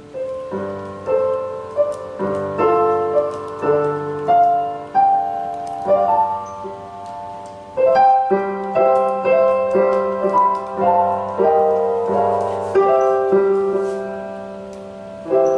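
Digital keyboard with a piano voice played slowly: chords and a melody line, the notes ringing on into one another, with a short break near the middle before the playing resumes. The instrument is sounding properly again after repair of its jack board.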